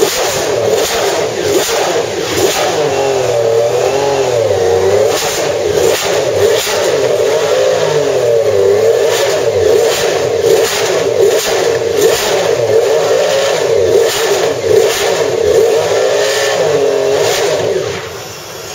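Lotus Formula One car's Lamborghini 3.5-litre V12 running stationary during warm-up. The revs rise and fall over and over under light throttle. The sound drops away shortly before the end.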